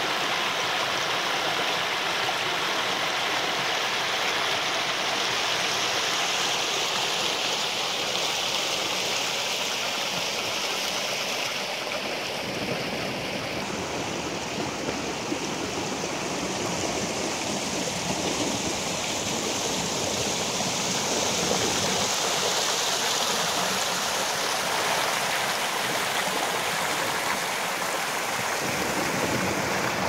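A shallow mountain stream running over rocks and small cascades between boulders: a steady rush of water.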